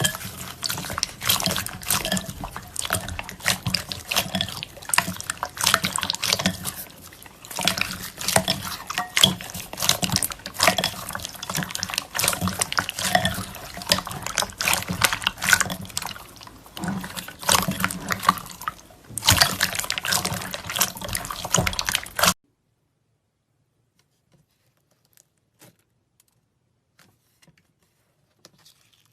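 Slime being squeezed and worked by hand, a dense run of wet, sticky clicks and pops that cuts off suddenly about three quarters of the way through, leaving only a few faint clicks.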